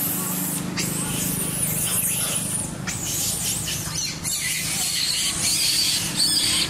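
Macaques squealing during a chase: short high-pitched squeals, most of them in the second half, over a steady hiss.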